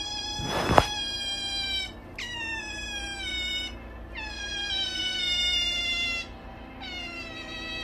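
Pet otter giving long, high-pitched whining calls, four in a row, each one falling slightly in pitch. A brief thump sounds about half a second in.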